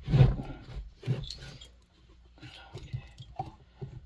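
Small taps, clicks and scrapes of tools and metal parts as a two-stroke chainsaw's cylinder is worked and pried loose from the crankcase, louder in the first second and a half.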